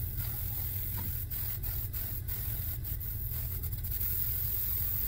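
Aerosol can of rust cleaner spraying in short repeated bursts of hiss, over a steady low hum.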